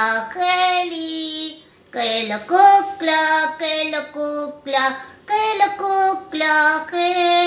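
A high, childlike voice singing a song alone, in short phrases with long held notes and brief breaks between them.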